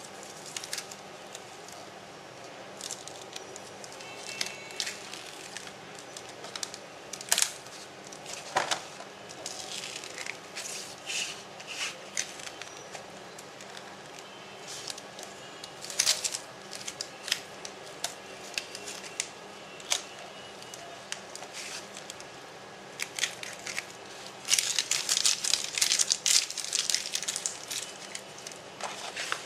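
Vinyl letter-cut sticker sheet being peeled and pressed down by hand: scattered crackles and crinkles of the sticker film and backing, with a denser run of crackling near the end.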